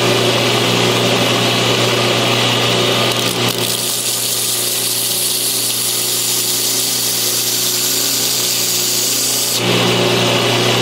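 2x72 belt grinder running steadily with a fine-grit belt, about 1200–1300. From about three and a half seconds in, a knife edge is held against the moving belt, adding a steady grinding hiss over the motor hum. Near the end the blade is lifted off and the motor runs on alone.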